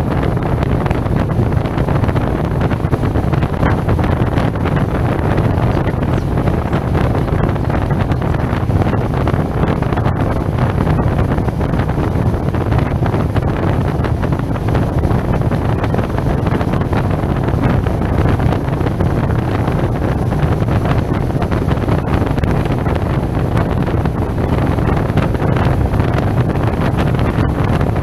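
Steady wind rush on a helmet-mounted camera's microphone while riding, over the low, even drone of a SYM Maxsym TL 508 maxi-scooter cruising on easy throttle, with its engine still in break-in.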